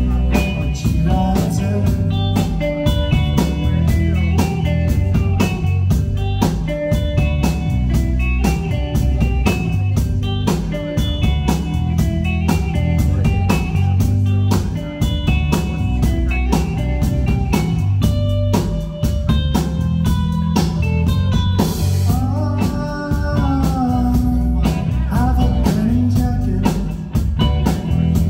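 Rock band playing live: drum kit keeping a steady beat under electric bass and electric guitar. About three-quarters of the way through, a line slides down in pitch several times.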